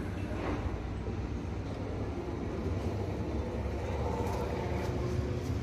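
Steady low rumble of a running motor vehicle, growing slightly louder, with a few faint clicks near the end.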